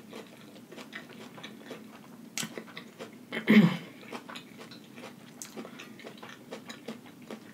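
Close-up eating sounds: a person chewing and biting a lettuce-wrapped veggie burger, with many small wet, crunchy clicks and one brief, louder mouth sound about halfway through.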